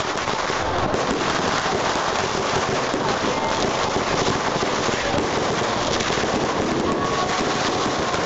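Dense, unbroken crackling of many firecrackers and fireworks going off at once, a steady rattle of countless small pops.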